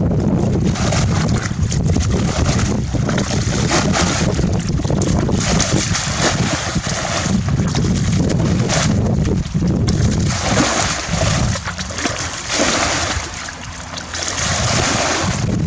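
Water splashing and sloshing close to the microphone in repeated surges, over a continuous low rumble.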